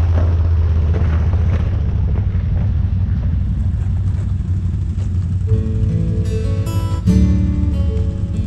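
ATV engine running steadily as it rides along. About five and a half seconds in, strummed acoustic guitar music starts over the engine.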